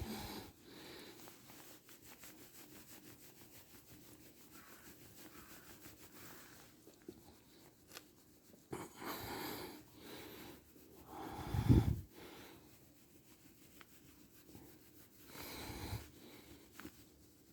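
Shiba Inu breathing and snorting close by: three noisy breaths about nine, twelve and fifteen seconds in, the middle one loudest and deepest.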